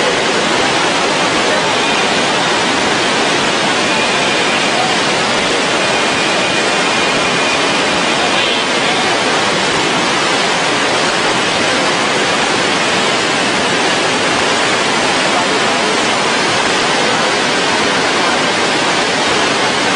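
Floodwater of a swollen river rushing, a loud steady noise with no let-up.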